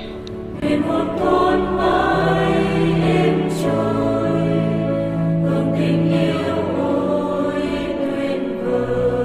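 Background music of choral singing in long, held notes, coming in about half a second in.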